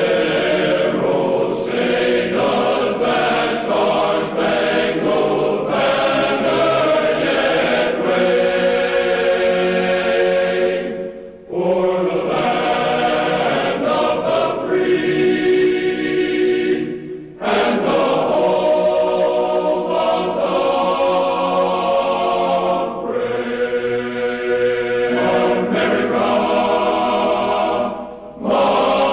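Choral music: a choir singing long, held phrases, breaking off briefly three times.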